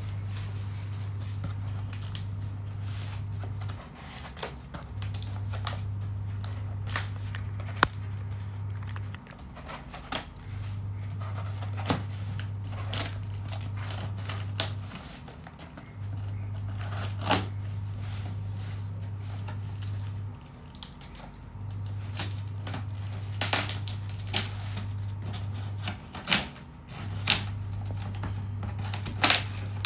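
Scissors cutting packing tape on a cardboard box, with scattered snips, crinkling of tape and taps on the cardboard. Under it runs a low hum that comes in stretches of about four seconds with short gaps between.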